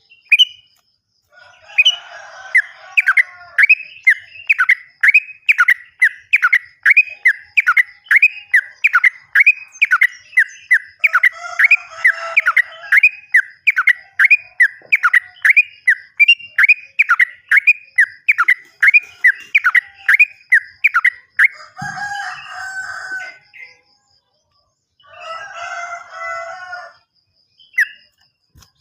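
Yellow-vented bulbul (trucukan) singing a long run of quick repeated downslurred whistled notes, about two a second. Near the end they give way to two bursts of harsh chattering.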